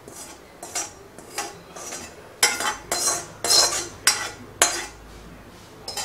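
Roasted semolina being scraped out of a metal pan onto a steel plate: a run of about eight sharp metal scrapes and clinks, loudest in the middle.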